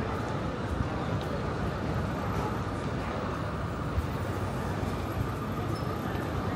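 Steady city background noise, a low rumble of traffic, with a single short knock about four seconds in.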